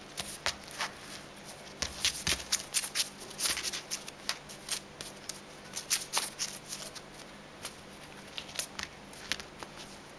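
Quick, irregular rustles and crisp clicks of a kitten playing with a feather on a hard wooden floor, coming thick and fast for a few seconds and thinning out toward the end.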